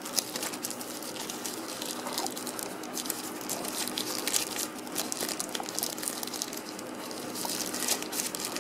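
Thin plastic wrapping being peeled and torn off a phone battery, crinkling with many small irregular crackles.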